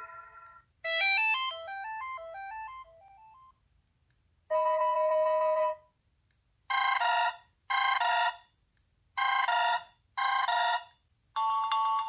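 Sony Xperia Z preset ringtones previewed one after another on the phone: a falling run of chime-like notes that fades away, a held electronic chord about four and a half seconds in, then four short bursts of beeping tones in two pairs, and another ringtone starting near the end.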